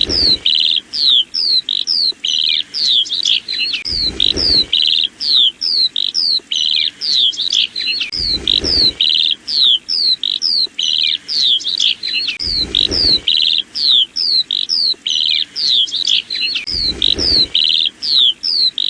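Lark singing a fast run of high, quick downward-slurred chirps and buzzy trills, repeating in a cycle of about four seconds. A brief low rumble comes at the start of each cycle.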